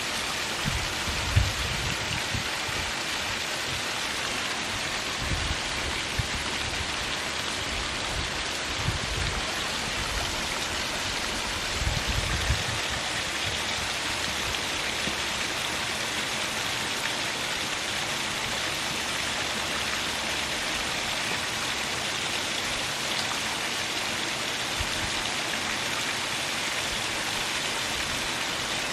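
Small waterfall: water splashing and rushing over rocks, a steady, even hiss. A few brief low thumps come in the first half, the loudest about a second and a half in and again around twelve seconds in.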